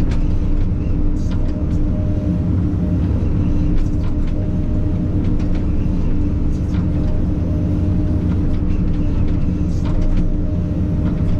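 Takeuchi TB2150 excavator's diesel engine running steadily while digging, with a few short knocks scattered through.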